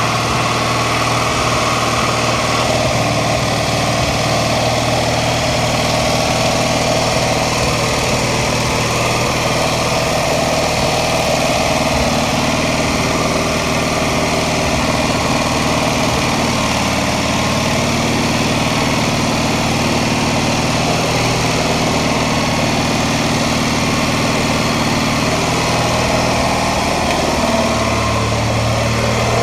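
The homebuilt bandsaw mill's 18 hp Kohler engine running steadily, turning its belt-driven 24-volt alternator.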